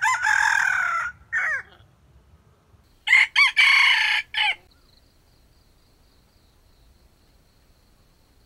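Junglefowl rooster crowing twice, loud and close, about three seconds apart. Each crow is short and ends in a brief falling note.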